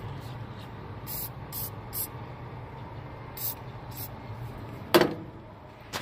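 Aerosol can of penetrating oil sprayed in several short hissing bursts onto a seized blower shaft and plastic driven pulley, to free the pulley from the shaft. A single sharp knock comes near the end, over a steady low hum.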